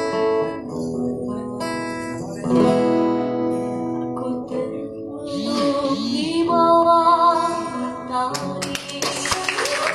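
Acoustic guitar playing with plucked, ringing chords; wavering singing voices come in over it about halfway through. Near the end the guitar gives way to a dense noisy wash with many short sharp sounds.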